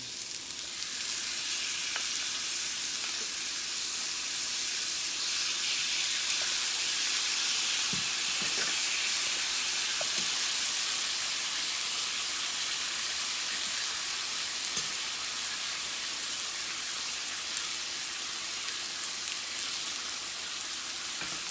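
Chicken breast cutlets sizzling on a hot grill: a steady, even frying hiss, with a few faint clicks scattered through it.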